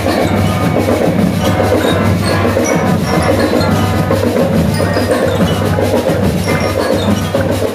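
School marching band playing: brass and saxophones over a steady drum beat, with the bright ring of bell lyres.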